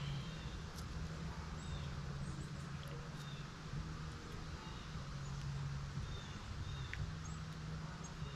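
Ear of sweet corn being shucked by hand: husks rustling and tearing, with short high chirps and clicks over a steady low hum.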